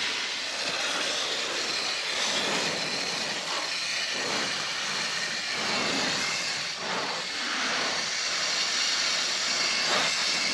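Water spraying steadily from a hose during watering, a continuous hiss that swells and shifts now and then.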